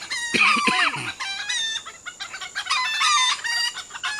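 Chickens clucking and calling, a rapid series of short repeated calls with quick falling pitch.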